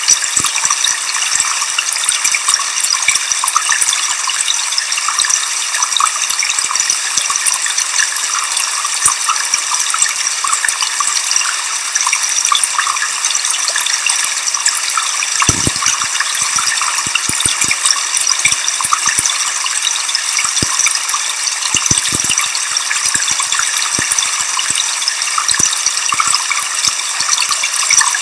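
Waterfall water rushing steadily: a bright, even hiss with almost no low rumble.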